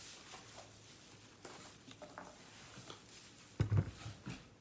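Produce being handled and unpacked: quiet scattered rustling and light taps, then a dull thump about three and a half seconds in as something is set down.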